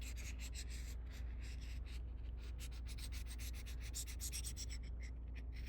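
Steel Mora-style ice auger blade rubbed flat on a 600-grit abrasive in rapid back-and-forth strokes, honing the flat back of the edge.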